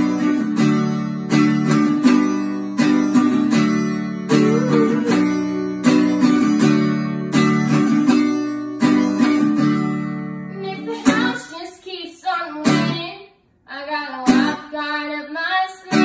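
Acoustic guitar strummed in a steady rhythm, chords ringing between strums. About eleven seconds in the strumming thins out and a young girl's singing voice comes in over it.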